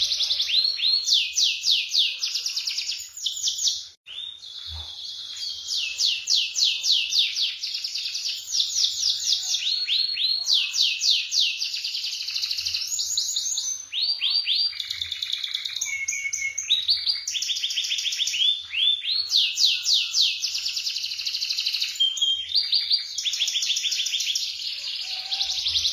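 Domestic canary singing a long, continuous song of rolling trills: runs of rapid, evenly repeated falling notes, each run lasting a second or two, with a brief pause about four seconds in.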